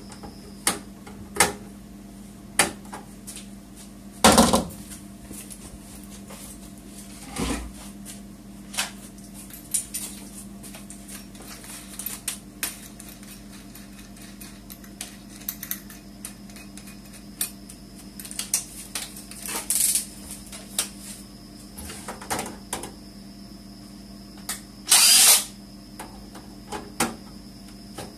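Scattered clicks and knocks of hand work on a desktop computer's steel case, with a few short bursts of a power drill driving screws, the longest near the end.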